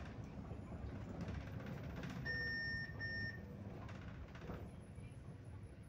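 Steady low engine and road noise inside a moving Mercedes-Benz Sprinter minibus, with two high electronic beeps a little over two seconds in, a longer one followed at once by a shorter one.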